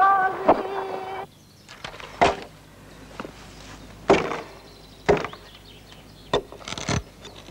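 A woman's high voice breaks off about a second in; then an axe chops at wood on the ground with about five sharp, irregular blows roughly a second apart and lighter knocks between them.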